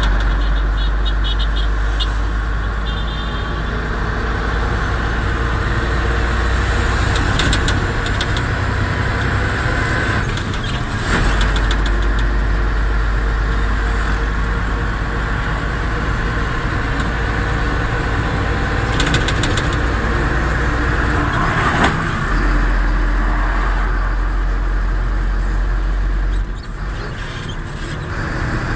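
Heavy truck's diesel engine running while driving, heard inside the cab as a steady low rumble.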